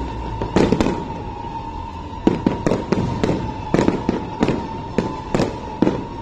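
Fireworks display: many bangs in quick, irregular succession, a few a second, each with a short echo.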